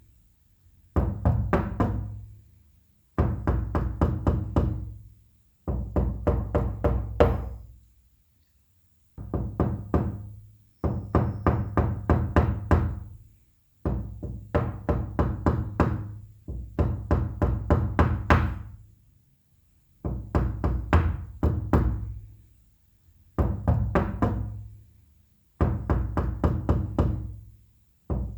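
Knuckles rapping on a wooden door in repeated bursts of quick knocks, about four knocks a second, each burst lasting around two seconds and followed by a short pause.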